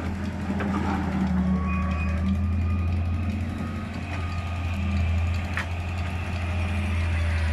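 Diesel engines of a Massey Ferguson 385 tractor, stationary, and a backhoe excavator running together in a steady low drone while the excavator digs soil and loads it into the tractor's trolley. Faint high whining tones come and go over the drone.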